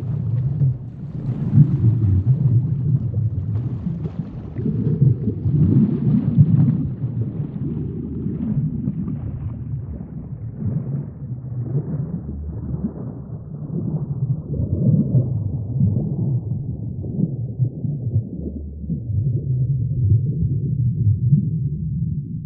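Deep, low rumbling drone that swells and ebbs in slow waves. It grows steadily duller until only the low rumble is left near the end.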